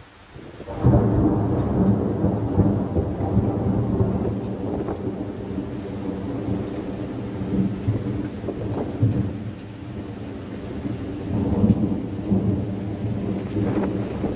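A thunderclap breaks about a second in and rolls on as a long low rumble, swelling again a few times, over steady rainfall.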